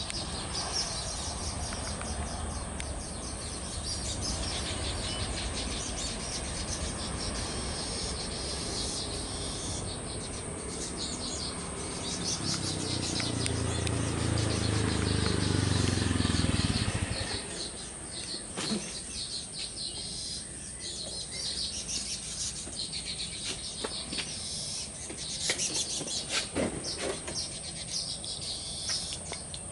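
Jet engine rumble from an Airbus A320 airliner rolling out after landing. It swells to its loudest just past the middle, then drops away suddenly. Insects and birds chirp throughout.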